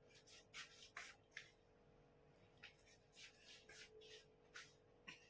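Quiet eating sounds: a dozen or so short, soft scrapes and rubs at an irregular pace, with near silence between them.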